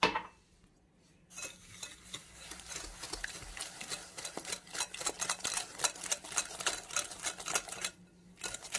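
Wire whisk beating eggs and sugar in a glass bowl by hand: fast, uneven scraping and clicking strokes of the wires against the glass. The whisking starts about a second in and stops shortly before the end, and a short knock comes at the very start.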